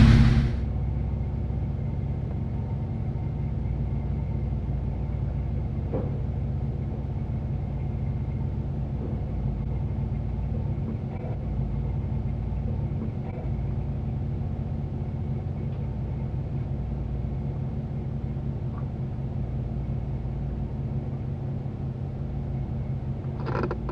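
An off-road 4x4's engine running steadily at low revs, an even low drone with no change in speed.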